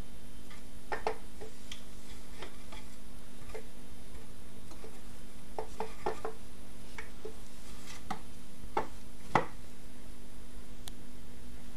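Scattered light knocks and taps as a cat's paws and claws strike and scrape the rungs of a wooden chair while it swats at a hand, the sharpest knock about nine seconds in.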